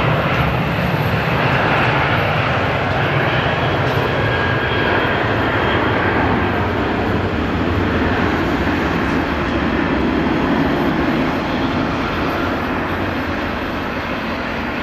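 Airliner engines running loud and steady, easing off and fading slightly near the end.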